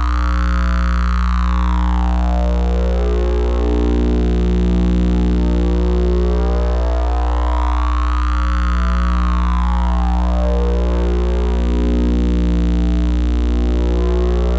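Electronic oscillator drone of the kind that drives RGB CRT oscillations: a loud, steady low hum under several held tones, with a sweeping tone that rises and falls slowly, peaking about every eight seconds.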